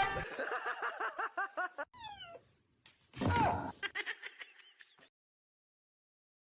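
A quick run of short, high chirping animal calls, about eight a second, then a louder falling call and a few scattered chirps, cut off to silence for the last second and a half.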